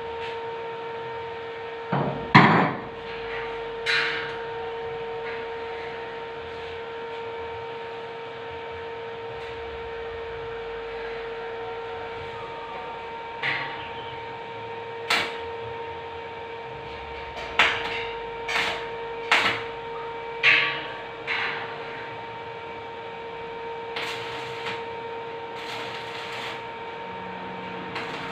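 Irregular hammer knocks on hollow steel tubing: about a dozen sharp metallic blows, each with a short ring, the loudest about two and a half seconds in and a quick cluster in the second half, over a steady hum.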